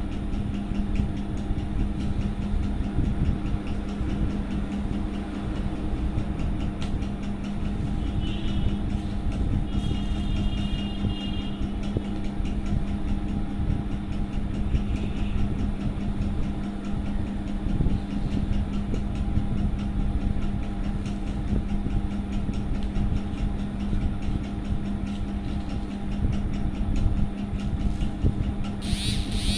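A steady mechanical hum with a constant low tone, running unchanged, with a few faint short high sounds about a third of the way in and a brief sharp high sound at the very end.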